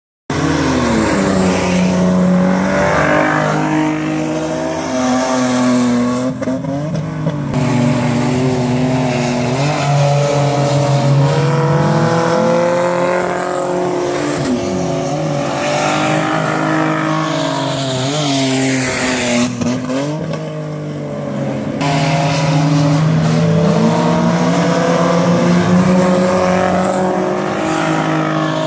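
Several dirt-track saloon race cars running hard, engines revving up and easing off with rising and falling pitch as the cars lap and pass close by.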